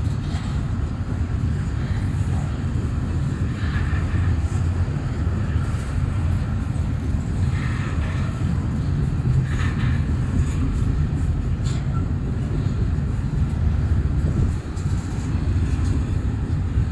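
Double-stack intermodal well cars rolling past: a steady, heavy rumble of steel wheels on rail. A few brief higher-pitched sounds rise over it.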